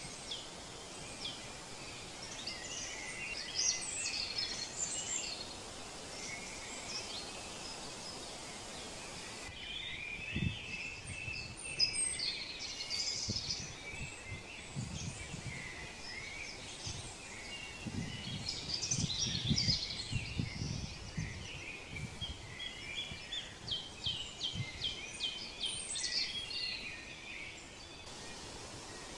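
Small birds chirping and twittering over a steady background hiss, with a quick run of repeated chirps about three-quarters of the way through and some low rumbling underneath in the middle.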